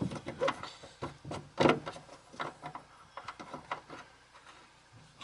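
Irregular light clicks and knocks from a plastic taillight assembly being fitted back onto its mounting studs by hand, with its nuts being started, no tools used. The loudest knock comes about one and a half seconds in, and the sounds thin out near the end.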